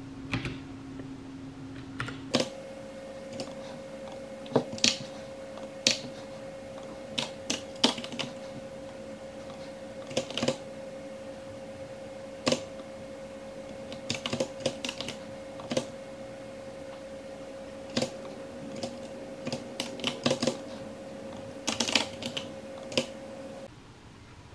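Keystrokes on a computer keyboard with round typewriter-style keys, sharp clicks coming singly and in short irregular runs with pauses between, over a steady faint hum.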